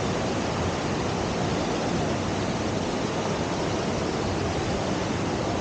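Steady rush of whitewater pouring over the standing river surf wave on the Deschutes River.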